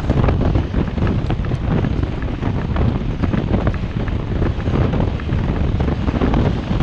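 Wind buffeting the microphone of a moving ICE recumbent trike, over a steady rumble of tyres on the road and many small knocks and rattles.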